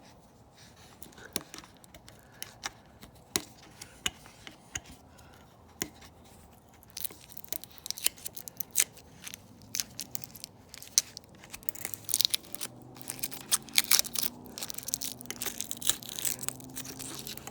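Thin protective plastic film being peeled off an air compressor's pressure gauge, crackling and tearing in quick snaps. The snaps come sparsely at first, then denser and louder in the second half.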